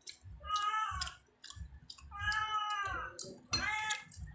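A cat meowing repeatedly: three drawn-out calls, each rising and then falling in pitch, with faint clicks between them.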